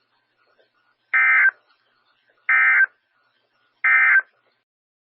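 Emergency Alert System end-of-message data bursts from a NOAA Weather Radio broadcast: three short, identical buzzy blips of digital tones about a second and a half apart. They mark the end of the alert.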